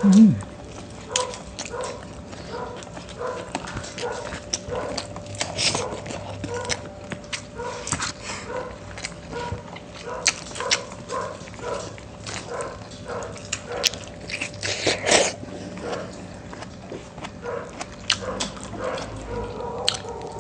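Eating at close range: chewing and sharp clicks of utensils on plates, over a dog in the background making short, evenly repeated cries about every two-thirds of a second.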